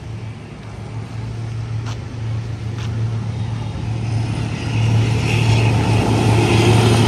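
D19E diesel-electric locomotive running with a steady low engine hum, growing louder as it approaches. Rolling and rail noise build over the last few seconds.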